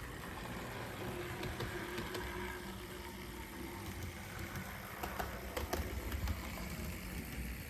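HO scale Alco RS2 model diesel locomotive running on the track, its small replacement electric motor and gears whirring steadily, with a few sharp clicks past the middle.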